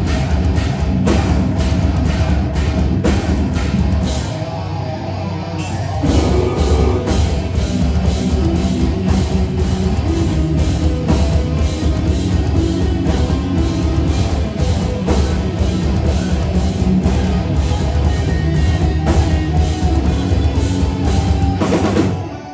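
Heavy rock band playing live and loud: pounding drum kit with guitars and bass. About four seconds in the drums drop out briefly before the full band comes back in, and the song stops abruptly near the end.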